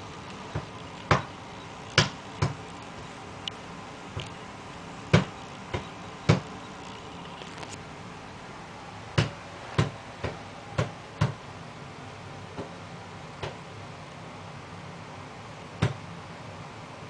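A baby slapping and patting her hands on the lid of a painted toy chest: irregular sharp knocks, some in quick pairs, a few fainter ones, and fewer toward the end.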